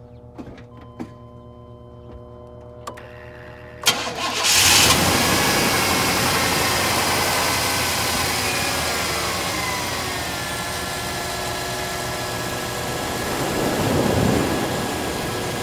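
Engine, just refilled with fresh synthetic oil, cranking and catching about four seconds in, after a few faint clicks. It runs fast at first, its pitch falling over several seconds as it settles to a steady idle that sounds smooth and nice.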